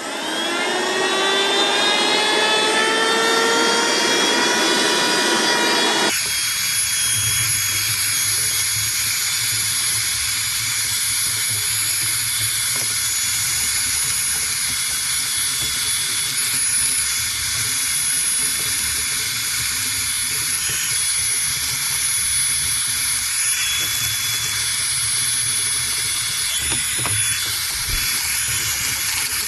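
HONKYOB cordless handheld vacuum cleaner/blower's small electric motor switching on and spinning up, its whine rising in pitch over the first few seconds. About six seconds in the sound changes abruptly to a steady run of rushing air with a high constant whine.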